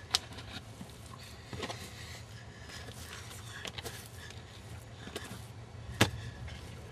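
Scattered light taps and knocks over a steady low hum, with a sharp knock just after the start and a louder one about six seconds in.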